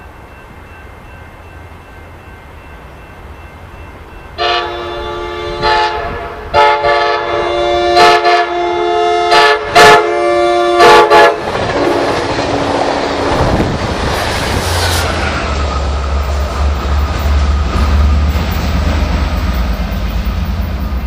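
Amtrak Pacific Surfliner passenger train approaching and running through: about four seconds in, the multi-tone horn sounds a series of loud blasts, long and short, for some seven seconds. Then comes the rush and rumble of the train passing, and in the last part a strong low drone from the F59PHI diesel locomotive at the rear of the train.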